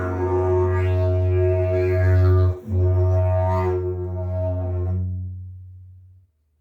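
Agave slide didgeridoo played as a steady low drone, with the player's mouth shaping sweeping overtones above it. The drone breaks briefly about two and a half seconds in, then fades out near the end.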